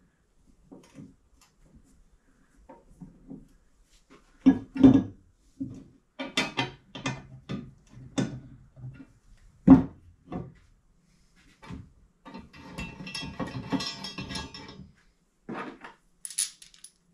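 Steel parts of a mower lift jack, with their bolts and washers, being handled and fitted together on a workbench: scattered metal knocks and clinks, a sharp knock about ten seconds in, and a couple of seconds of continuous clattering around thirteen to fifteen seconds.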